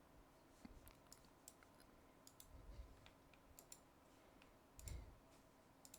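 Faint, scattered clicks of a computer mouse and keyboard, irregular rather than rhythmic, with a soft low thump about three seconds in and another about five seconds in.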